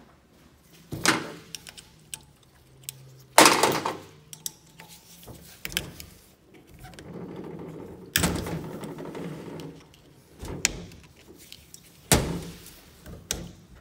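Metal tool clicking, knocking and scraping against a CP4 high-pressure diesel fuel pump on a steel bench while a piston is pried out. There are a few sharp knocks with ringing, with smaller clicks and scraping between them.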